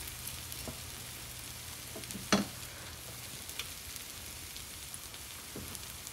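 Onions and spice masala sizzling steadily in oil in a frying pan while a silicone spatula pushes holes into the mix, with a few small clicks and one sharp knock about two seconds in.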